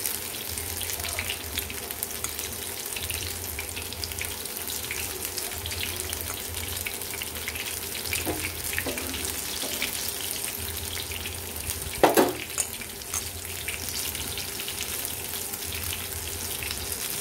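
Besan-battered onion rings deep-frying in hot oil: a steady sizzle with fine crackling. A brief, louder knock stands out about twelve seconds in.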